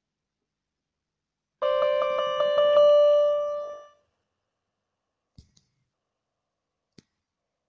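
Electronic keyboard sounding a bell-like tone: one note struck rapidly about six times, then held and fading out. Two faint clicks follow.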